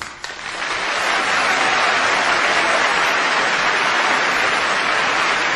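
Live audience applauding, swelling up within the first second and then holding steady and dense.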